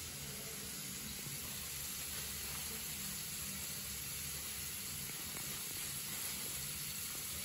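Water running steadily from a bathroom faucet into the sink: a faint, even hiss.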